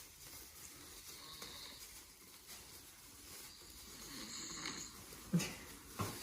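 A man snoring heavily in his sleep, slow rasping breaths that swell and fade, with two brief louder sounds near the end.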